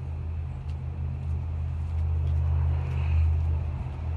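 Wind buffeting the camera microphone: a steady low rumble that grows a little louder about two seconds in.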